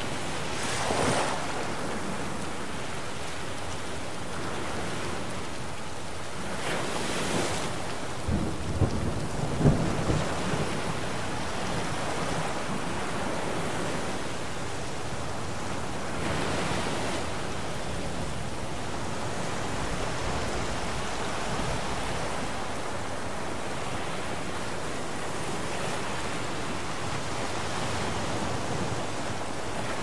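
A thunderstorm: steady heavy rain with rumbling thunder, and a sharp crackling thunderclap about eight to ten seconds in. The rushing noise swells briefly a few times.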